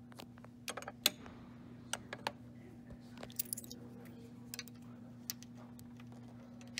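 Scattered sharp metallic clicks and taps from the chrome coin mechanism and chute flap of a quarter candy vending machine being handled, the loudest about a second in.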